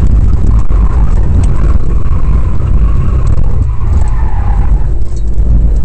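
Rally car driving a stage, heard from inside the cabin: loud, steady engine and road rumble, with the engine note wavering and dipping about four seconds in.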